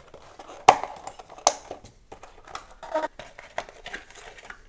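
Cardboard packaging being cut and handled: a run of sharp clicks and snaps, the loudest two in the first second and a half, with light crinkling and rustle between them.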